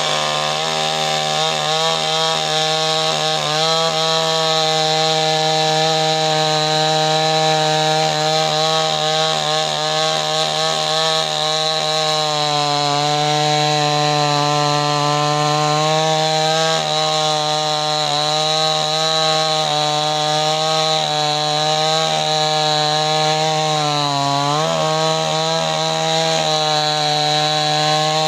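Chainsaw engine running at high, steady speed while cutting wood; its note sags briefly and recovers about 24 seconds in.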